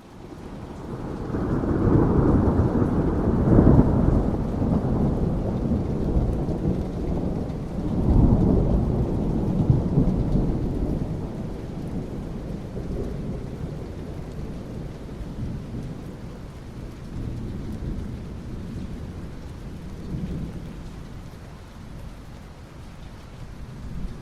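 Thunder rumbling in two long rolls over steady rain. The first swells up over the first few seconds, the second comes about eight seconds in, and both die slowly away into the rain.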